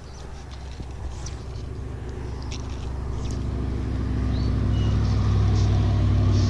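A motor vehicle's engine with a steady low hum, growing steadily louder over the first few seconds and then holding.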